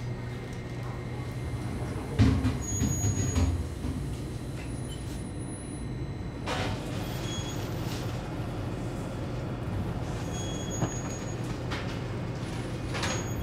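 Steady low hum of bakery machinery, with a few knocks and clatter about two to three and a half seconds in and a couple of brief high tones later.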